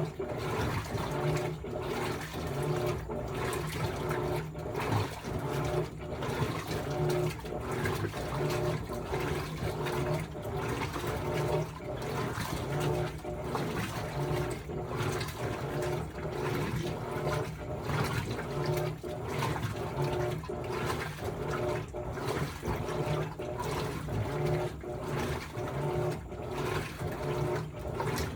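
Electrolux LTD16 16 kg washing machine in its rinse cycle: water churning and splashing in the tub over a steady low motor hum, going on without a break.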